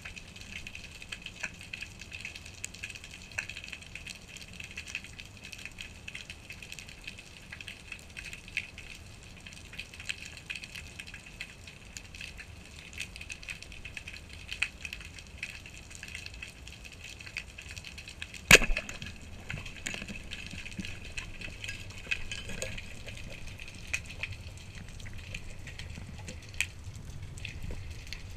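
Underwater ambience, a steady crackle of many small clicks. About two-thirds of the way through comes one loud, sharp crack, the Pathos Open Laser 120 band-powered speargun firing its shaft.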